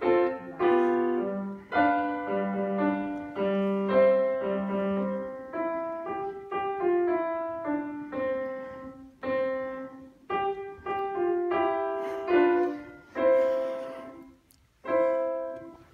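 Grand piano playing the closing bars of a sonatina: a run of clear notes and chords, a brief pause near the end, then a final chord.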